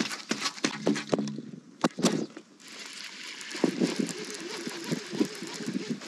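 Fishing reel being cranked, a fast, rattly whirring that starts about three and a half seconds in, as a jerkbait is reeled back in; a few sharp knocks of gear against the canoe come before it.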